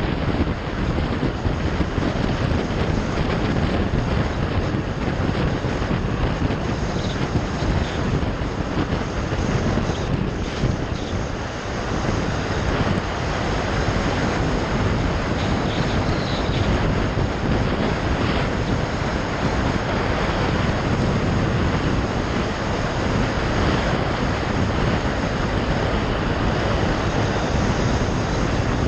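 Steady wind rush over the microphone of a moving motorcycle, with the bike's engine running underneath.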